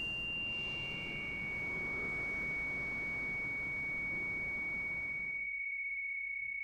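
A steady, high-pitched pure tone that shifts to a slightly lower pitch within the first two seconds, over faint room noise that cuts off near the end, leaving the tone on its own.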